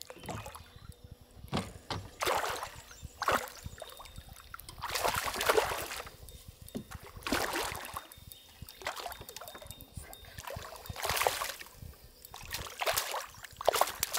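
Hooked smallmouth bass splashing and thrashing at the water's surface beside the boat while it is played in and scooped into a landing net; irregular splashes, about one every second or two.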